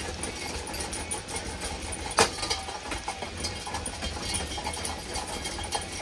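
Damaged ceiling fan running, its motor and battered blade assembly rattling in a steady rhythm, with one sharp knock about two seconds in.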